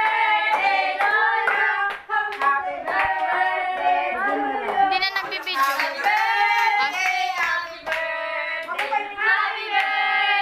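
A group of people, children among them, singing together, with hands clapping along.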